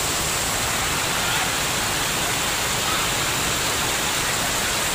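Steady rush of falling and spraying water from water-park slides and fountains, even and unbroken.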